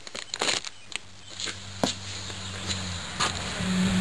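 Clear plastic packaging crinkling as fingers handle it: scattered sharp crackles, densest in the first second, then a few isolated clicks.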